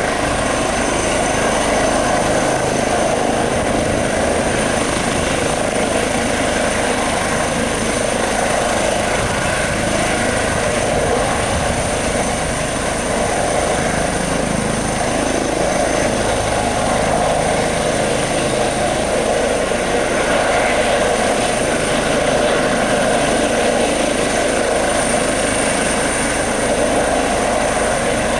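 Eurocopter EC135 helicopter, its twin turbine engines and rotors running steadily at an even level, with a steady high turbine whine over the rotor noise.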